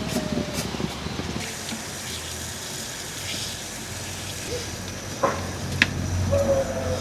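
Water splashing and pouring during hand washing, with two sharp knocks near the end.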